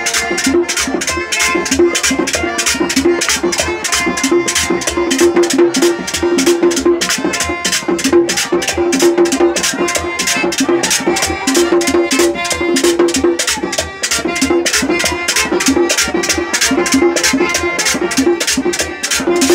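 Live merengue típico: a button accordion plays a melody over a fast, steady scraping rhythm from a güira and the beats of a tambora drum.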